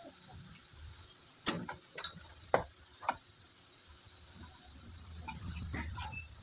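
Four sharp clicks about half a second apart, from a soldering iron and tools tapping on the hand-wired amplifier board, followed by a low rumble of handling.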